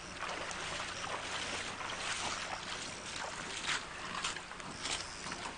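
Steady rushing of river water, an even hiss, with a few short sharp sounds scattered through it; the loudest comes a little past halfway.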